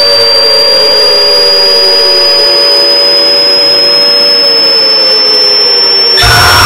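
A shrill, piercing high-pitched whistling tone that slowly rises in pitch, with lower tones sliding slowly downward beneath it over a hiss. Just after six seconds it switches abruptly to a louder rumbling roar.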